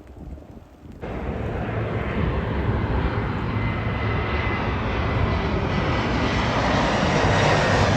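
Jet airliner passing low overhead: a steady rushing engine noise with a faint high whine, growing slightly louder. It cuts in abruptly about a second in and stops sharply at the end.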